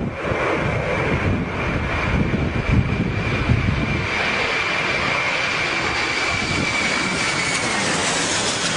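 Jet airliner on low approach passing overhead. Its engines make a steady rumble with a high whine, and the whine drops in pitch near the end as the plane goes over. Wind buffets the microphone in the first half.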